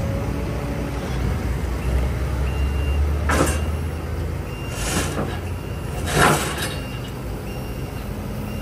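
Heavy diesel vehicle engine running, with three short hisses of compressed air, the last one the loudest, and a few faint short beeps.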